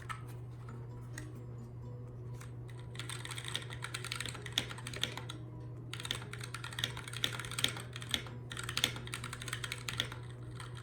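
Typing on a Keychron K6 mechanical keyboard with tactile Gateron Brown switches. A few scattered key clacks, then steady runs of quick typing from about three seconds in, broken by two short pauses.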